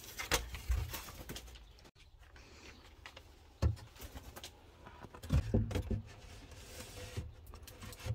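Low cooing bird calls, with a few dull knocks and bumps from a wooden-handled cleaning tool against the wooden cage frame, the strongest about five and a half seconds in.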